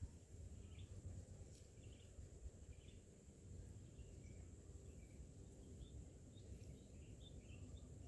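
Near silence with faint outdoor ambience: a low rumble, a steady high-pitched whine, and faint short bird chirps about once a second.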